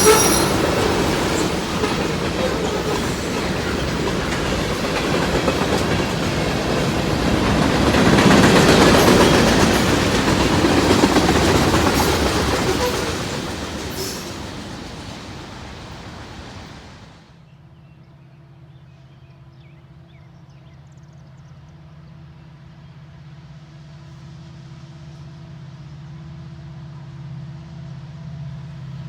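A train passing close by, a loud rumble with clickety-clack of the wheels on the rails and a brief wheel squeal at the start. The rumble swells about eight to eleven seconds in, then fades. About seventeen seconds in it cuts off abruptly to a much quieter, steady engine hum that slowly grows louder.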